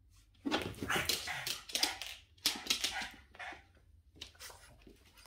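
Boston terrier barking and whining in two long runs, about half a second in and again at about two and a half seconds, with a shorter, fainter one near the end.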